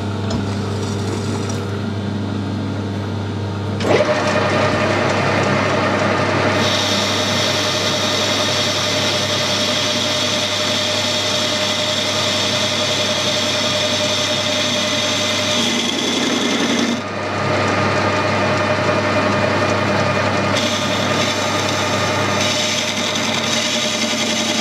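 Metal lathe boring a counterbore in a mild steel bush: the spindle runs with a steady hum, and the boring bar enters the cut about four seconds in with a steady cutting hiss and a high ringing tone. The cut briefly drops out about two-thirds of the way through, then carries on.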